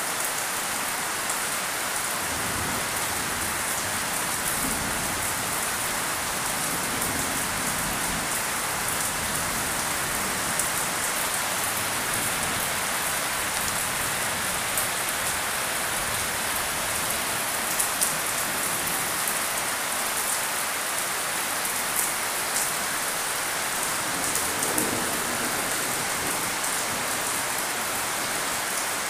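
Steady rain falling, with a sharp tick now and then from a drop striking close by.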